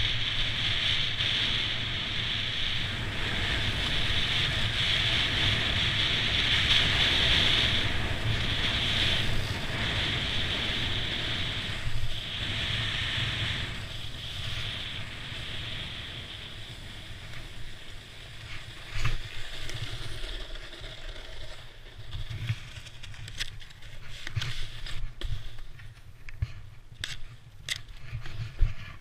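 Snowboard sliding down a snow slope: a steady hiss of the board on the snow mixed with wind on the microphone, getting quieter from about halfway through, with a few sharp knocks near the end as the board ploughs into soft snow.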